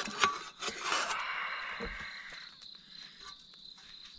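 Crickets chirping as a steady high trill, with a few sharp metallic clinks in the first second as the lid of an aluminium camping mess tin is handled and lifted off. A brief hiss follows and fades out by about halfway.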